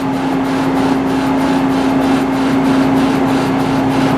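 Metal lathe turning a sawmill mandrel's steel fast collar, the cutting tool scraping over a steady machine hum. The tool is not yet taking a full cut all the way round, because the collar is not running perfectly square.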